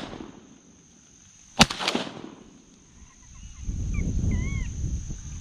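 A single shotgun shot about a second and a half in, ringing out briefly over a steady high buzz of marsh insects. A few short bird chirps and a low rumbling noise follow a couple of seconds later.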